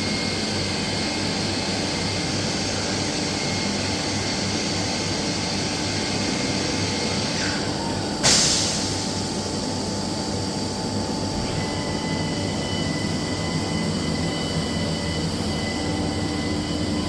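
SCM Morbidelli M100 CNC machining centre running with a steady mechanical noise. A sudden burst of hiss comes about eight seconds in and fades over a couple of seconds. A steady high whine joins from about eleven seconds in.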